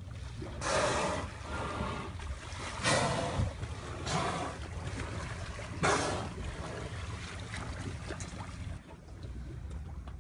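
Boat engine running steadily at low revs, with four short bursts of rushing water or splashing in the first six seconds.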